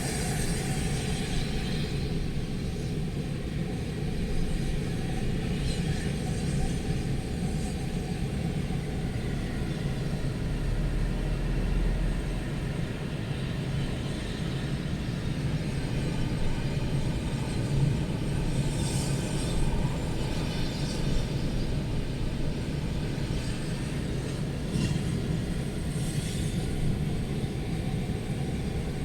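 Storm wind buffeting the microphone as a steady low rumble, with a few brief hissing gusts.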